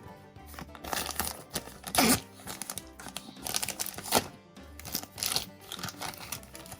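Crinkling and sharp clicks of plastic as a toy capsule ball and its wrapping are opened, with a few louder snaps, over steady background music.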